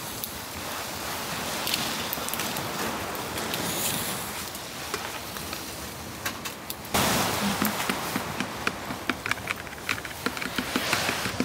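Food sizzling as it cooks: a steady hiss, then from about seven seconds in a louder sizzle with frequent sharp crackling pops.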